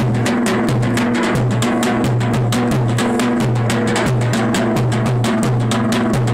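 Folk dance music with a fast, steady drum beat under a repeating low melody.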